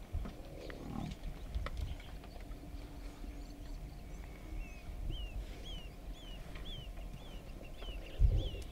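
Cape buffalo herd giving low, bending calls, strongest in the first second or so. From about halfway a bird repeats a short falling chirp about twice a second, and a loud low thump comes near the end.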